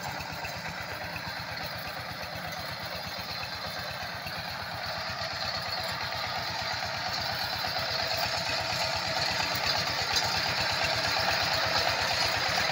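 A 14 hp single-cylinder diesel engine on a walk-behind power tiller runs under load while tilling soil, with a steady, fast firing rhythm that grows gradually louder.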